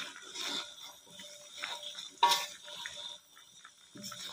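Wooden spatula stirring braised eggs and gravy in a metal wok, scraping and knocking against the pan. A sharper, briefly ringing scrape comes a little past two seconds in.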